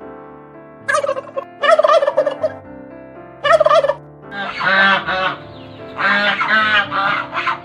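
A bird calling loudly over background music: three short calls, then two longer calls of rapid, rattling notes in the second half.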